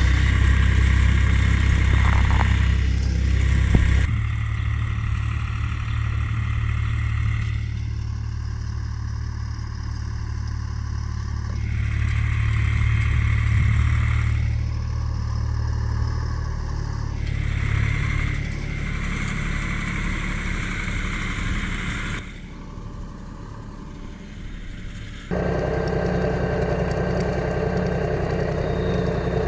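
Hürlimann XA 606 tractor engine running steadily while it pulls and drives a Pöttinger Hit 54N rotary tedder turning hay. The sound shifts abruptly about four seconds in, goes quieter for a few seconds later on, then comes back louder near the end.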